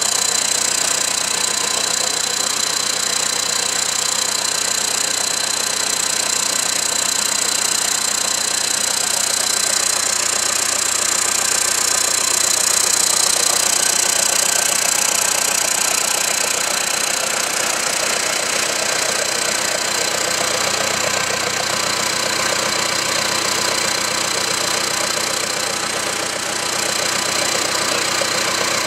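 Perkins 1104D four-cylinder turbocharged diesel engine running steadily after an overhaul, on a newly fitted Bosch fuel pump. A thin, steady high whine runs along with the engine noise.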